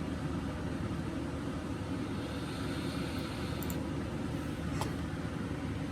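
Steady low background hum and rumble, with a faint hiss in the middle and two short clicks about three and a half and five seconds in.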